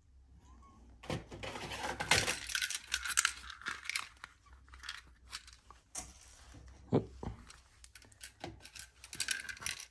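Small clear plastic parts drawers being pulled from and handled at a storage cabinet, with LEGO pieces rattling and clattering inside as parts are picked out. There are two sharper knocks of plastic on plastic a little before the end.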